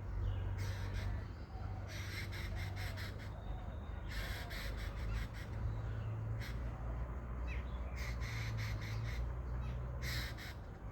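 Crows cawing: about five harsh, rasping bursts of calls at irregular intervals, over a steady low rumble.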